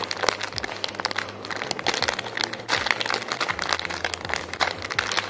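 Clear plastic packaging bag crinkling and crackling as it is handled and turned over in the hands, a dense run of irregular small crackles.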